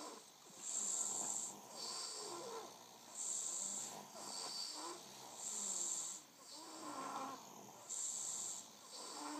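Two sleepers snoring in turn, a double snore. One snore has a higher hiss and the other is lower and rougher; each comes about every two and a half seconds.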